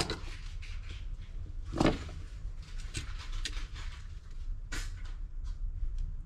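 Scattered small clicks and taps from handling a metal tape measure and pen, over a steady low hum.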